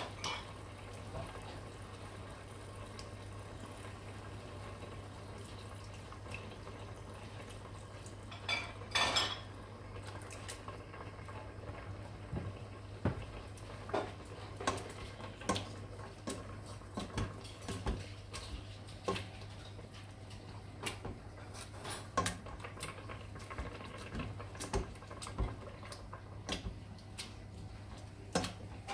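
A potato masher and a spoon knocking and scraping against a stainless steel pot while cooked pumpkin is mashed and stirred. The knocks are irregular and start about eight seconds in, over a steady low hum.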